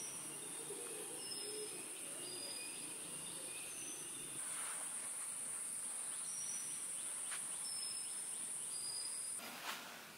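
Forest ambience: a steady high insect drone with a bird repeating a short whistled note about once a second. The drone grows louder about four seconds in and cuts off abruptly near the end.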